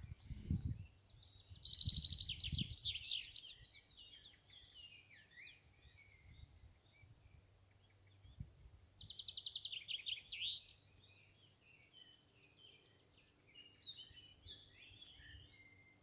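Nightingale singing: three song phrases with quiet gaps between them, the first two built on fast runs of repeated notes and the last a shorter jumble of varied notes near the end.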